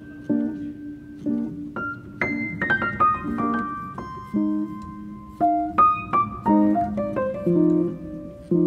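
Background piano music: a melody of single higher notes over sustained low chords.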